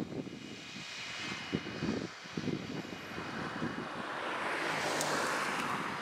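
Fendt 514 tractor and McHale round baler working, the engine running steadily under the irregular low knocking of the baler. From about four seconds in, a broad rushing sound swells up and fades again.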